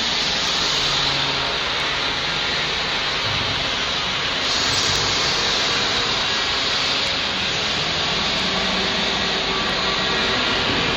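TIG welding arc on 1.5 mm stainless steel, giving a steady, even hiss.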